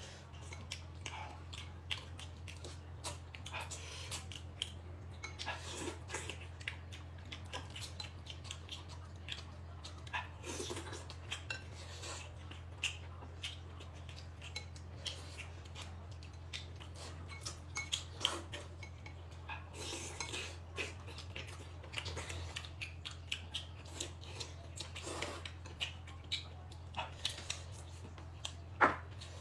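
Eating utensils clinking and tapping against bowls and plates during a meal, in scattered light clicks with one sharper clink near the end, over a steady low hum.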